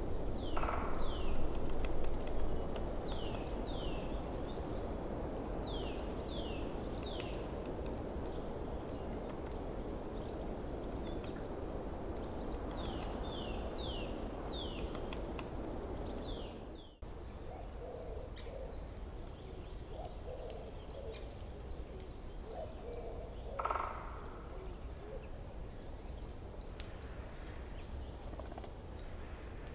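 Forest stream running, with birds calling over it. First come repeated short downward-sliding chirps. Then, after an abrupt cut, the water is quieter and a bird gives a high, rapid trill of evenly spaced notes twice, with one brief louder call between the trills.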